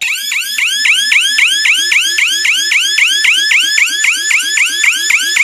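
GSM wireless burglar alarm siren going off with a loud, fast warbling wail that repeats about five or six times a second. This is the alarm sounding because the armed system has been triggered.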